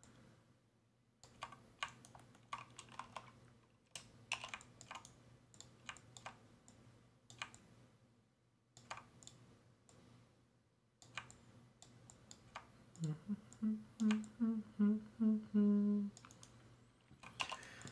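Computer mouse and keyboard clicks, sparse and light. About thirteen seconds in, a man hums a short run of six or seven brief notes for about three seconds.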